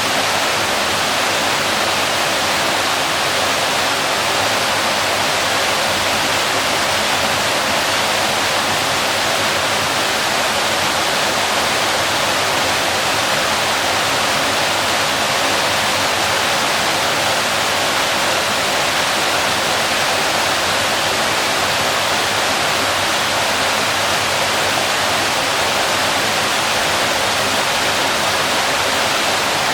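Waterfall pouring steadily, a dense, even rush of falling water.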